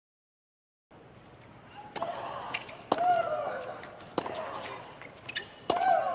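A doubles rally on a hard court: the ball is struck by rackets roughly once a second, several hits carrying a sharp grunt from the player, over a hushed stadium crowd. The sound starts about a second in, after silence.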